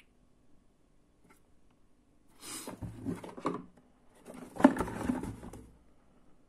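Cardboard toy box being turned over and handled, the card rubbing and scraping against the hands in two short bouts starting about two and a half seconds in.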